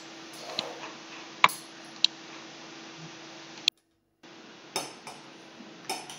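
Stainless knife and fork clinking and scraping on a ceramic dinner plate while cutting a meat patty and roast potatoes: a few sharp clinks and short scrapes, over a faint steady hum. The sound breaks off completely for about half a second midway.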